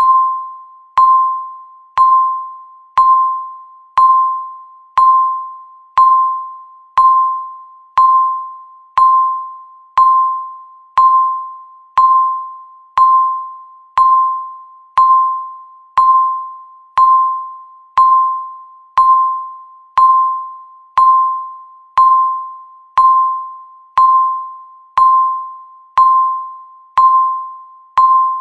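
Countdown timer beep sounding once a second. Each beep is one mid-pitched tone with a sharp start that fades away before the next, marking off each second of the countdown.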